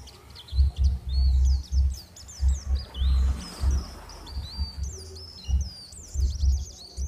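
Small birds chirping constantly in quick, high, up-and-down notes. Irregular low rumbling thuds come and go underneath and are the loudest part.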